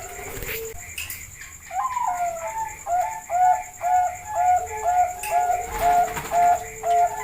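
Zebra dove (Bangkok perkutut) cooing: a longer rising-and-falling note, then from about three seconds in a rhythmic run of short coos, about two a second.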